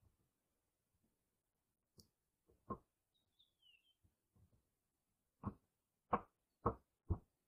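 Dull wooden knocks from hand work on the boards of a plank outhouse: one about three seconds in, then four in quick succession near the end, roughly two a second. A faint bird chirp sounds between them.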